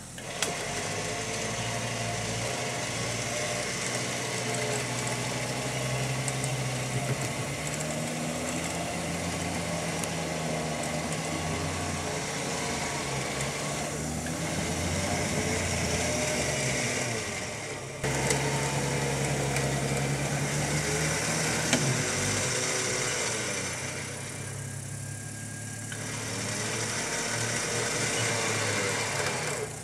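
Jeep's engine running while its front bumper winch pulls it up out of a deep rut, a steady mechanical hum that breaks off briefly about two-thirds through.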